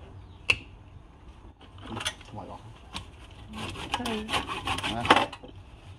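Flat steel scraping tool held against a wooden workpiece spinning on a lathe, scraping the wood in short strokes. A sharp click comes about half a second in, and the scraping grows denser and louder in the second half.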